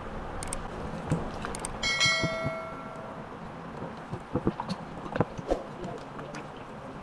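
Wet squelches and slaps of a whole raw chicken being turned and pressed in marinade in a glass bowl. About two seconds in, the glass bowl is knocked and rings once, fading over about a second.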